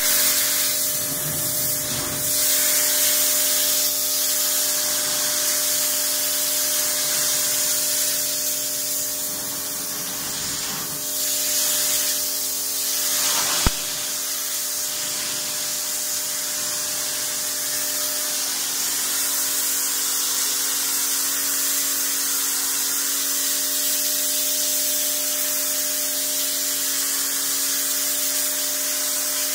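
Pressure washer's high-pressure water jet hissing steadily as it blasts grime and algae off a brick wall, with a steady hum underneath and a single sharp click about halfway through.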